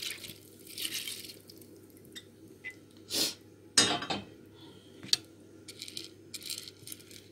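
Rinsed rice poured from a glass bowl into a glass baking dish and spread level with a utensil: clinks and scrapes against the glass, loudest a sharp clink about four seconds in.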